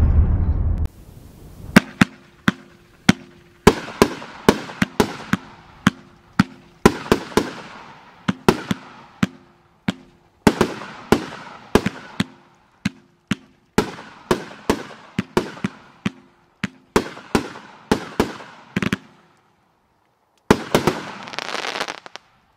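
The 'American Heart' consumer fireworks cake firing: dozens of sharp cracks, often two or three in quick succession, after the dying rumble of a big explosion in the first second. Near the end there is a brief dense crackling hiss from the white glitter.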